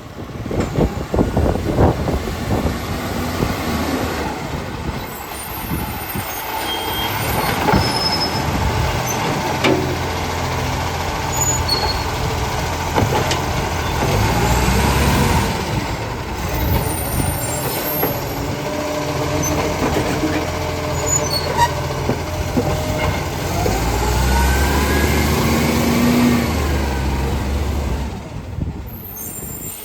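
Garbage truck's diesel engine running, its pitch rising and falling, with air brake hisses and a few sharp clanks.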